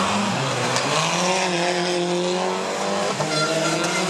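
Rally car engine running hard at high revs. Its pitch holds fairly steady, dips briefly about three seconds in, then climbs again.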